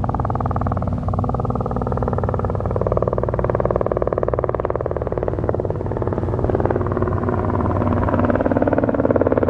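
Cessna 172 single-engine piston airplane passing low on final approach to land, its engine and propeller running steadily and growing a little louder near the end as it comes closer.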